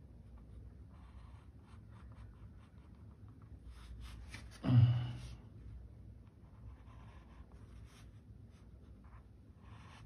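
Mechanical pencil lightly sketching on paper, in faint short scratching strokes. About halfway through comes a brief, much louder sound that drops in pitch.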